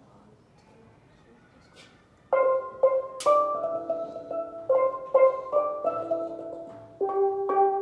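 Steel pan struck with mallets, a beginner playing a simple melody: single ringing notes that die away, starting about two seconds in after a near-quiet start.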